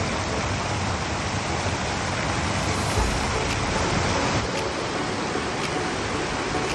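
River water rushing steadily over a low weir and between rocks, with a brief low bump about three seconds in.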